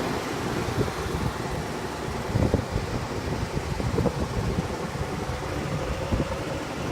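Gasoline engine of a 2020 Blue Bird Vision school bus idling steadily, with a few soft thumps and some wind on the microphone.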